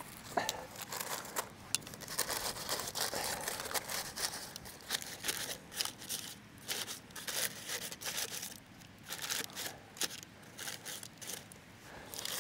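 Greaseproof paper crinkling and rustling as it is pushed down into a cast-iron Dutch oven with metal tongs, a steady run of short, sharp crackles.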